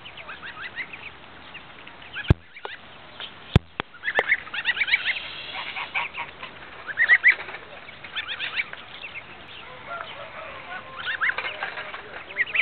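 A flock of Muscovy ducklings and goslings peeping constantly in many short, high calls while feeding together. A few sharp clicks come between about two and four seconds in.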